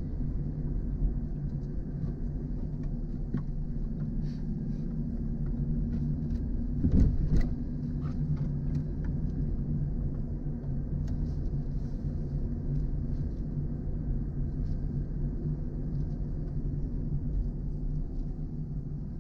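Steady low rumble of a car's engine and road noise heard inside the cabin while driving, with a brief louder thump about seven seconds in.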